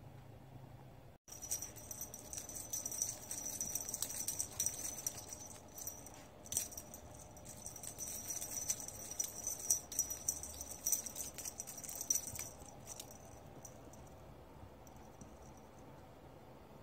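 A light, high-pitched jingling rattle of many quick small clicks. It starts about a second in after a brief cut-out and stops a few seconds before the end.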